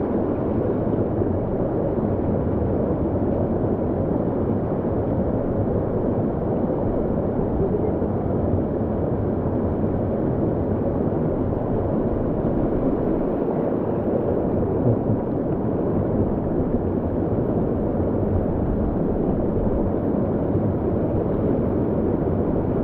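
Canyon stream water rushing, a steady, even noise strongest in the low and middle range, close to the microphone.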